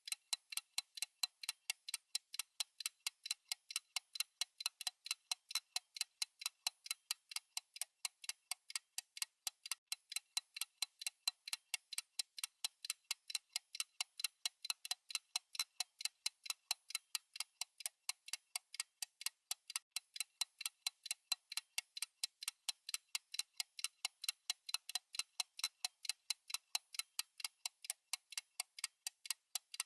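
Countdown timer's fast tick-tock sound effect: sharp, evenly spaced ticks, several a second, keeping a steady rhythm.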